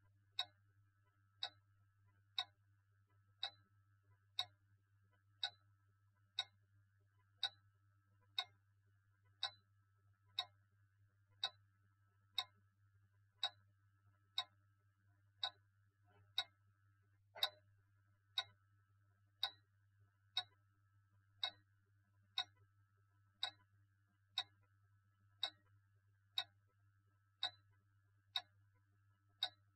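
Steady, even ticking, one sharp tick about every second, over a faint low hum.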